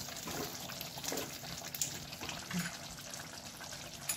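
Chicken in thick masala gravy bubbling and sizzling in an open pan, cooking uncovered to dry the gravy down, with a few faint taps of a wooden spatula against the pan.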